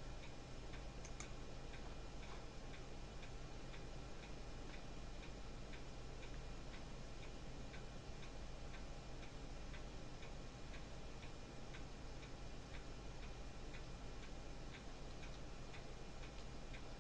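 Faint, steady ticking, about two ticks a second, over a low steady hum.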